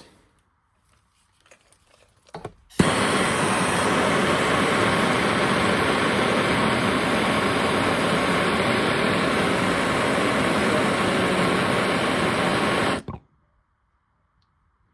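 Gas soldering torch lit with a sharp pop about three seconds in, then its flame hissing steadily for about ten seconds while heating the copper pipe joint, before it is shut off abruptly.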